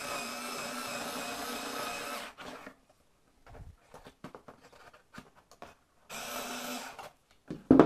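Parkside PAS D5 4 V cordless screwdriver with its rotary cutting attachment running: a steady motor whine for about two seconds as it cuts thin card, then light rustling and handling clicks, then a second, shorter run of under a second. A sharp knock near the end.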